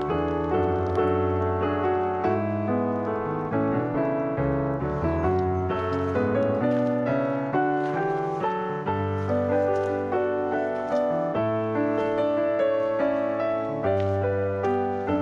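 Background piano music: a steady flow of notes over a low bass that changes every second or two.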